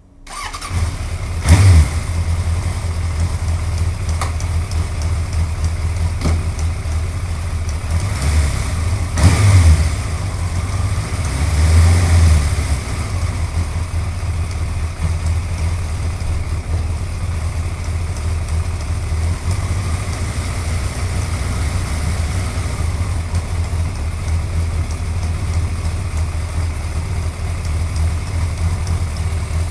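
Suzuki GSX-R1100 inline-four motorcycle engine starting, blipped up briefly three times, then settling into a steady idle.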